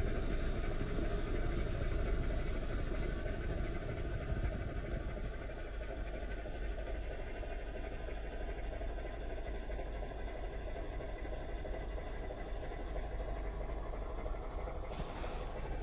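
Hyundai Porter light truck's engine running steadily, a low, even rumble with no change in speed.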